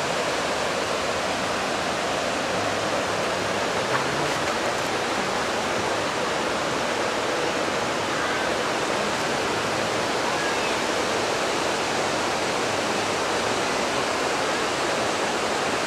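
Mountain river whitewater cascading over boulders: a steady, dense rush of falling and splashing water.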